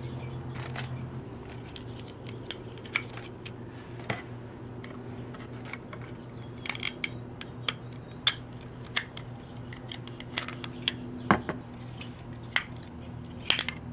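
Plastic case of a Linksys WUSB300N wireless USB adapter being pried apart, giving a scatter of small sharp clicks and snaps, the loudest about eleven seconds in and near the end. A steady low hum runs underneath.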